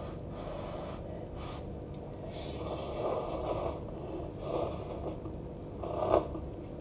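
A person slurping instant cup noodles off a fork: a long slurp a little over two seconds in, then two shorter ones.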